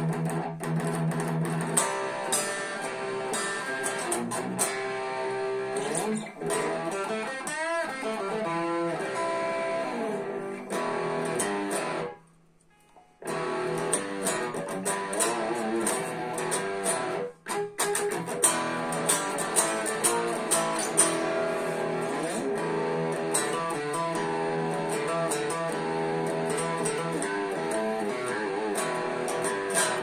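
Cort X1 electric guitar played through a Behringer GRX212 amplifier: a continuous run of picked notes and riffs. Around eight seconds in the pitch wavers and bends, and about twelve seconds in the playing stops for roughly a second before carrying on.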